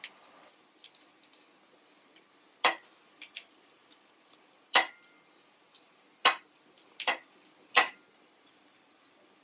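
A spatula knocking and scraping against a cast-iron grill pan as sweet potato fries are turned, with five sharp knocks through the middle and end. Behind it a cricket chirps steadily, about two short high chirps a second.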